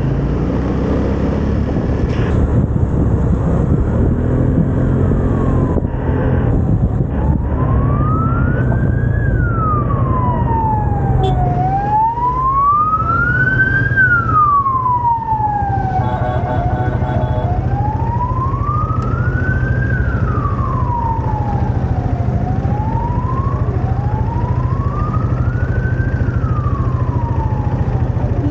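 An emergency vehicle's siren wailing. Its pitch slowly rises and falls about every five to six seconds, beginning several seconds in, over a steady low engine and traffic rumble.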